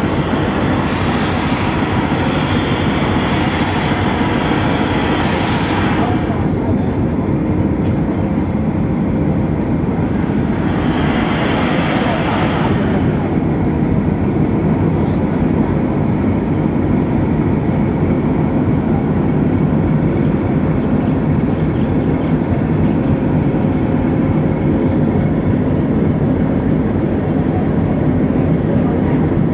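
Nilgiri Mountain Railway steam locomotive moving slowly along the platform to couple up with its coaches: a steady, dense rumble and hiss. A few short, sharp hissing bursts come in the first six seconds, and a longer one about ten seconds in.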